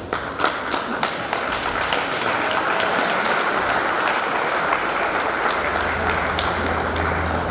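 A large crowd of guests applauding with many overlapping claps as a bride and groom appear for their entrance. A steady low bass tone comes in about two-thirds of the way through.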